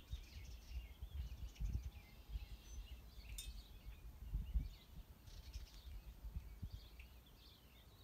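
Wild birds chirping and singing, many short calls overlapping, with wind buffeting the microphone in uneven gusts.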